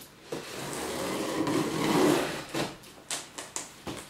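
Scissors slitting the packing tape along the top seam of a cardboard box: a steady slicing for about two seconds, then several short sharp cuts.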